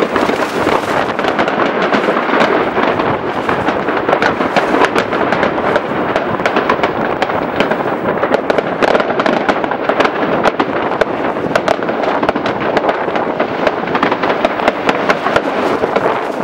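Many fireworks and firecrackers going off at once: a dense, unbroken crackle with sharp bangs overlapping several times a second.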